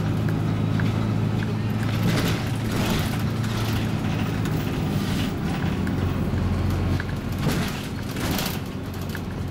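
Interior sound of a Scania MaxCi low-floor city bus on the move: a steady engine drone with road noise and brief rattles. The drone eases off a little near the end.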